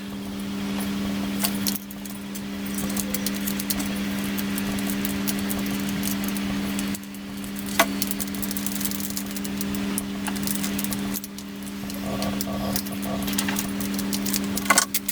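Electric jigsaw running on a test with its newly made steel blade clamp fitted: a steady motor hum with the blade rattling, dipping briefly in level about three times.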